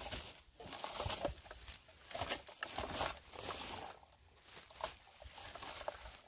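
A hand-held berry-picking scoop combing through bilberry bushes, leaves and twigs rustling in repeated uneven swishes with small clicks.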